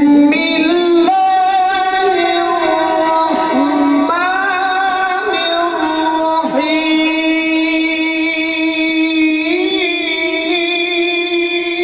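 A man's voice in melodic Quran recitation (tilawat), holding long steady notes with short ornamented turns between them.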